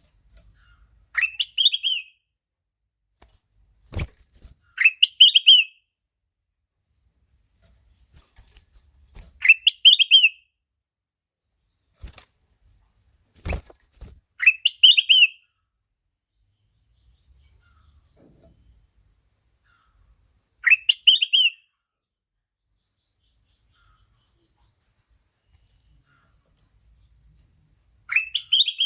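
Kutilang emas, a bulbul, singing a short rising trilled phrase six times, several seconds apart, over a steady high-pitched insect drone. Two sharp clicks come in the first half.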